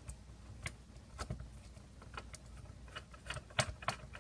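Small plastic clicks and taps from handling the case of a FrSky Taranis QX7 radio transmitter during disassembly, scattered at first, with a quick run of sharper clicks near the end.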